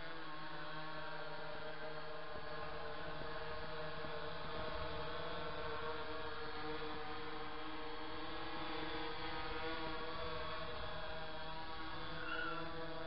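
Tovsto Aegean brushless GPS quadcopter hovering, its propellers giving a steady hum of several pitched tones that waver slightly as it holds position against the breeze. A low wind rumble buffets the microphone underneath.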